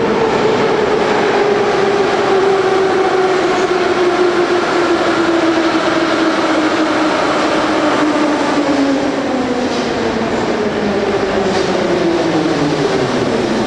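Metro train pulling into the station. Its motor whine falls steadily in pitch as it slows, over the loud rumble of the train.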